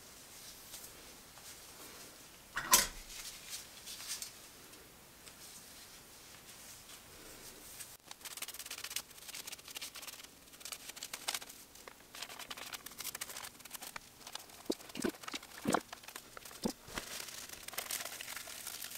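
Aluminium hair-colouring foil crinkling and rustling as it is handled and folded around a bleached section of hair, in short crackles that grow busier about halfway through. One sharp click about three seconds in.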